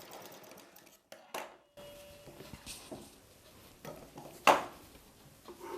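A sewing machine's stitching dies away in the first second. After a short break come scattered light metallic clicks and taps of handling at the machine, with one sharp click about four and a half seconds in.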